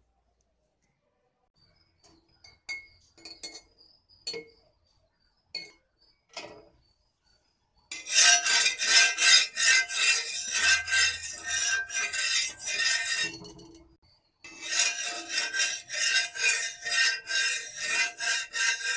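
A metal utensil scraping back and forth across a tava griddle in rapid strokes, about three a second, in two long runs with a short break between them, after a few scattered light clinks.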